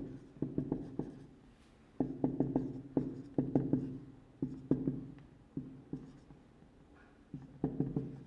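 Marker pen writing on a whiteboard: quick runs of short strokes and taps, each run a second or so long, with short pauses between them.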